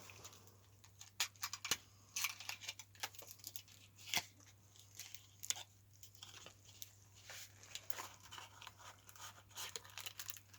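Packaging of a new deck of playing cards being worked open by hand: many short tearing, crinkling and crackling sounds of the wrapper and tuck box, fumbled and stop-start.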